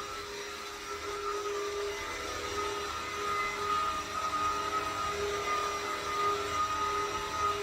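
Vacuum cleaner running steadily, its motor whine wavering slightly in pitch and level.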